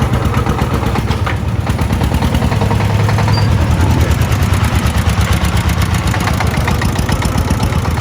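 Single-cylinder diesel engine of a công nông farm truck chugging with a rapid, even beat, running lightly under load and swelling a little in the middle.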